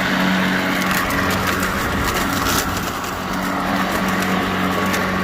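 Greenworks 80V battery-powered push mower running at a steady pitch while its blade mulches dry leaves and grass, with a constant hum and a scatter of crackling, ticking leaf debris.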